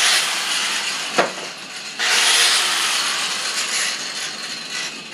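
Angle grinder cutting a 1/4-inch bolt, the abrasive disc grinding on metal with a harsh hiss. There is a sharp knock about a second in, a fresh loud spell of grinding at about two seconds, and the grinding then slowly fades.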